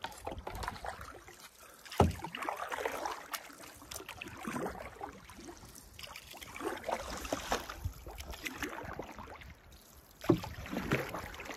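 Canoe paddle strokes: a wooden paddle dipping and pulling through calm water, with splashing and dripping between strokes. Two sharp knocks stand out, one about two seconds in and one near the end.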